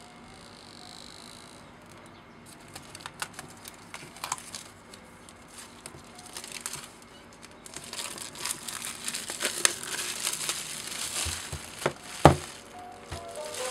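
Paper seal strips being torn off an iPad Air cardboard box, with the packaging crinkling and rustling under the hands. There are scattered small clicks at first, a denser stretch of crinkling about two-thirds through, and a single knock near the end.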